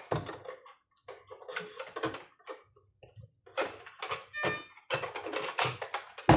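Clicks, taps and clatter of hard parts being handled while a patient monitor's mainboard is refitted. A short metallic ring comes about four and a half seconds in, and a sharp knock near the end.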